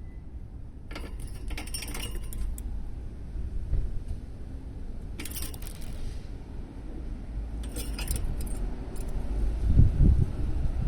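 Small metal objects jangling in three short bursts, over a steady low rumble of wind on the microphone that grows louder near the end.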